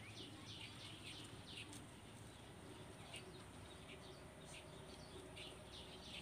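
Near silence with a small bird's faint, high chirps repeating, several a second at first, then more sparsely.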